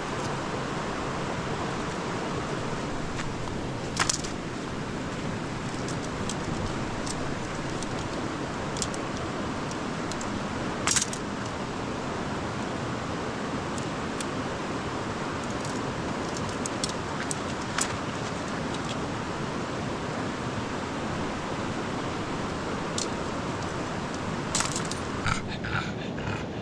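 Steady rush of a flowing river, with a few short sharp clicks scattered over it; the loudest come about four and eleven seconds in, and a small cluster comes near the end.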